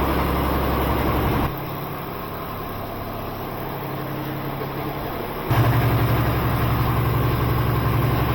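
Steady low mechanical drone, like an engine or machine running. It drops abruptly about a second and a half in, then comes back louder with a stronger low hum about five and a half seconds in.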